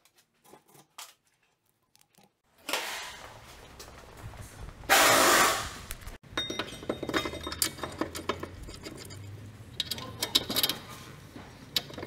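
Metal brake parts and hand tools clinking, knocking and rattling as they are handled. About five seconds in, a loud hiss lasting about a second.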